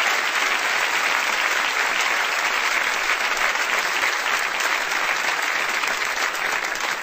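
A large audience applauding, a dense steady clatter of many hands clapping.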